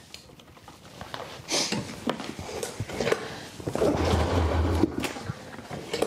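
Arctic Cat M7 snowmobile's two-stroke engine being pull-started on its recoil starter: clicks and rattles of handling, then about four seconds in a pull turns the engine over with a short low chugging that does not settle into a run. The sled dies while running and will not restart, a fault the owner has not yet traced.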